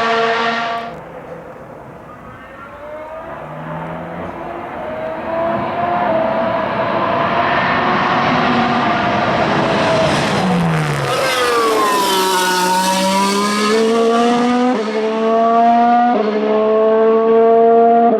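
Mercedes-AMG F1 W08 Formula 1 car's turbocharged 1.6-litre V6 hybrid engine at racing revs. The note fades about a second in, then swells and climbs in pitch. Around eleven seconds in it drops steeply as the car goes past, then climbs again with quick upshifts near fifteen and sixteen seconds.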